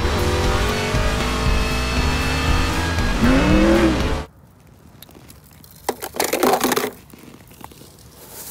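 Race car engines running with music over them, one engine's pitch rising then falling near the end, for about four seconds before it cuts off suddenly; after that only faint rustling and clicking.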